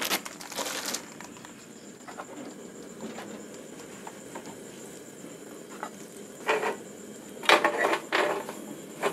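A plastic bread bag crinkles for about the first second, then a wooden spatula scrapes and presses bread slices on a griddle pan in several short rasping strokes near the end.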